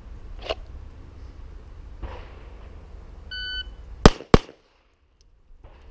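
A shot timer beeps once; just under a second later a stock Gen 3 Glock 17 fires two quick 9mm shots about a third of a second apart. The pair is finished 1.03 seconds from the beep.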